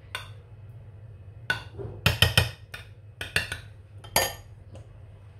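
Metal spoon clinking and knocking against a glass baking dish and bowl: a string of sharp taps, closest together about two seconds in.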